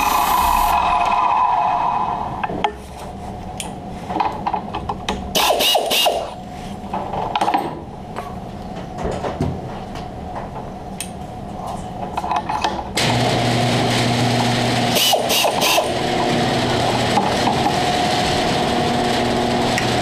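G0704 CNC milling machine: loud running with a high hiss that drops away about two seconds in, then scattered clicks and knocks, and about thirteen seconds in the machine starts up again and runs steadily with a hum.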